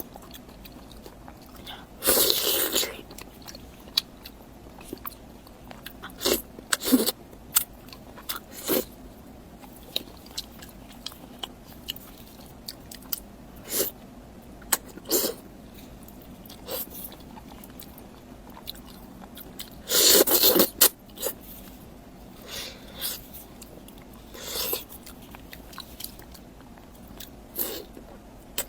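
Close-miked eating sounds of steamed fish: irregular chewing and biting noises with small wet clicks, and two louder bursts, one about two seconds in and one about two-thirds of the way through.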